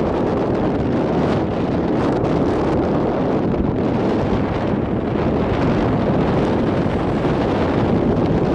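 Very loud wind rushing over the microphone of a camera carried by a passenger on a moving motorcycle, a steady rush without a break.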